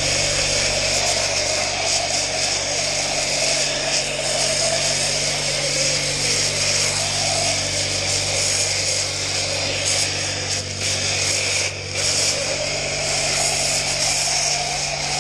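High-pressure wash lance spraying a dirt bike and the wash-bay floor: a steady hiss of spray over a steady low hum. The spray briefly drops out twice, about eleven and twelve seconds in.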